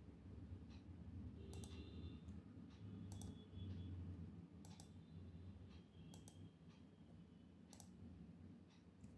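Faint computer mouse clicks, scattered at roughly one a second, over a low steady electrical hum from the recording setup.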